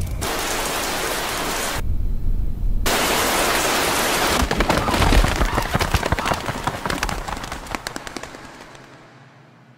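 Steady hiss of heavy rain that cuts out briefly about two seconds in, followed by a dense run of crackling pops from a burst of fire and sparks, dying away near the end.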